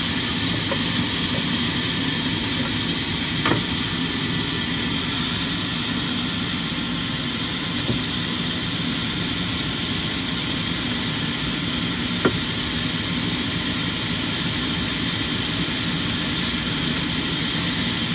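Sawmill machinery running steadily, a constant motor hum with hiss and no change in load, broken by a few brief sharp knocks.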